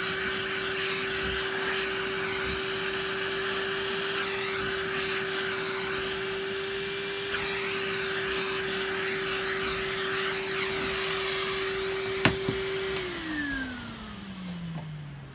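A small electric motor spinning up to a steady high whine over a rush of air. Near the end there is a sharp click, and the whine falls steadily in pitch as the motor spins down.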